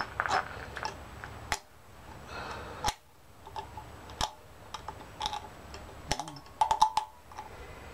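Metal parts of a hydroboost brake booster clicking and tapping as a spring and rod are pushed into place by hand: scattered sharp clicks, with a quick run of them near the end.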